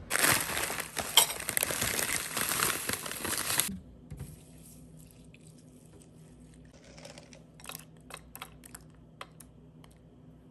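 Horizontal window blinds rattling as they are pulled up, loud for nearly four seconds and then cutting off suddenly. After that, a few faint light clinks of a spoon and raisins in a ceramic cereal bowl.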